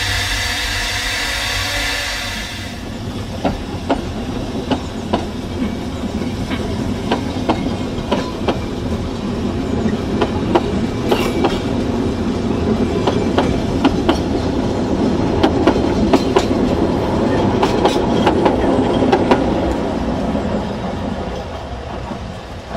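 A Ffestiniog Railway Double Fairlie narrow-gauge steam locomotive and its carriages running along the line: a steady rumble with a run of sharp clicks from the wheels over the rail joints, growing louder to a peak and fading near the end. In the first couple of seconds there is a steady hiss instead.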